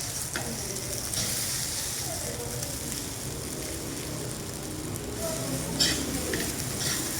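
Fried rice sizzling in a hot pan as it is stirred, with a few sharp knocks against the pan, the loudest nearly six seconds in.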